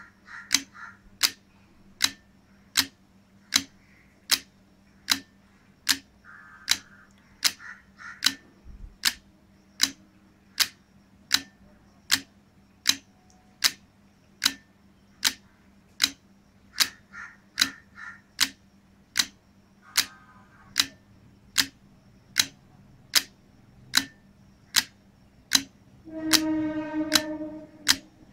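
Electromagnetic relays of a relay-operated clock-pulse generator and 2-bit binary counter clicking as they switch, one sharp click about every two-thirds of a second in a steady rhythm, each click a clock pulse that steps the count. Near the end a steady pitched tone sounds for about a second and a half over the clicking.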